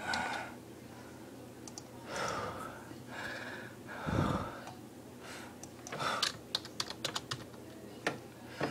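Computer keyboard keys clicking in a quick, uneven run in the second half, with soft breathy sounds close to the microphone earlier on.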